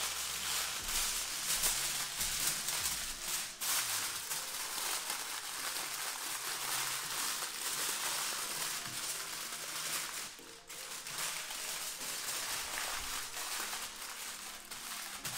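Aluminium foil crinkling and crumpling as it is folded, curled and pressed tight around a tray of ribs into a sealed pouch, with a short lull about ten and a half seconds in.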